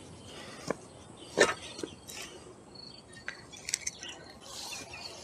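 A few light scattered clicks and a soft rustle as the green insect netting over a vegetable bed is handled, with faint short chirps in the background.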